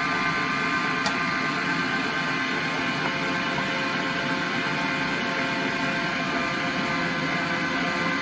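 Michelangelo electric meat grinder running steadily as it extrudes ground cooked split peas (dhal) through its mincing plate, an even motor hum. There is one light click about a second in.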